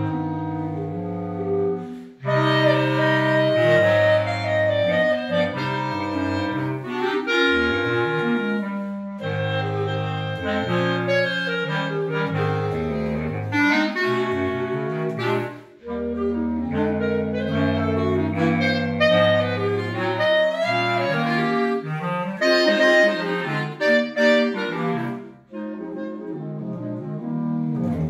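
Clarinet quartet of three clarinets and a bass clarinet playing a lively piece in parts, the bass clarinet taking the low line. The music breaks off briefly about 2 s and 16 s in, and the piece ends on its final chord at the very end.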